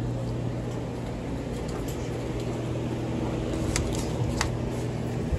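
Steady low electrical hum of a store's refrigerated beverage coolers and deli display case, with two light clicks about four seconds in.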